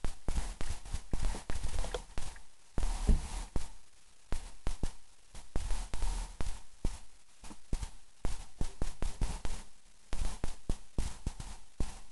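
Rapid, irregular knocks and low rumbling buffets on the microphone, with no steady tone.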